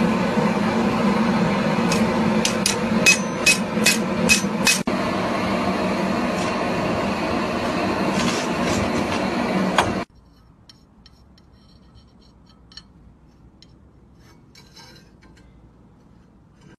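Hammer blows on hot steel on an anvil: about eight quick, ringing strikes over a steady drone. About ten seconds in, the drone cuts off abruptly, leaving only faint small clicks.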